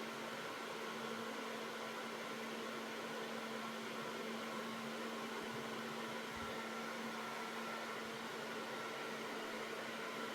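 Steady background hum with a hiss over it, even throughout, with no distinct sounds standing out.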